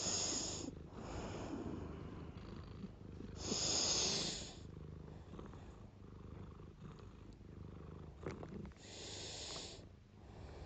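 Domestic cat purring steadily in a low rumble, held close to the microphone, with four breathy puffs of about a second each, the loudest about four seconds in.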